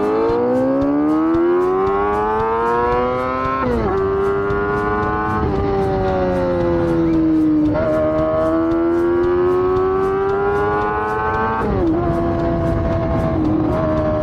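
Honda Gorilla's swapped-in 250cc four-cylinder four-stroke engine pulling under acceleration through its renewed silencer. Its pitch climbs, then falls sharply at each of three gear changes, about every four seconds, and holds fairly steady near the end.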